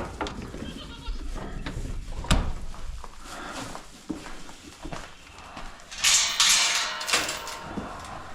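Goats and sheep bleating in a barn, with a sharp knock at the start and another about two seconds in, and a burst of rustling noise about six seconds in.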